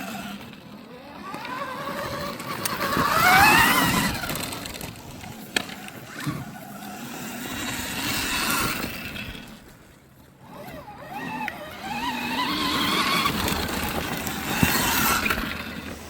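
Motorcycle engine on a dirt flat track accelerating hard, its pitch rising to a loud peak about three to four seconds in. It then eases off, dropping quiet around ten seconds in, and builds again through the second half.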